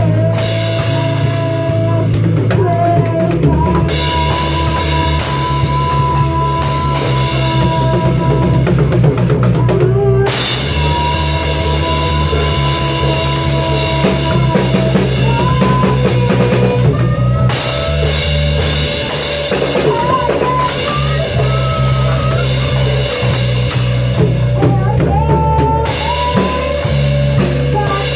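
Kids' rock band jamming live and improvising: a drum kit played with steady bass drum and crashing cymbals, under a bass guitar line and held higher notes.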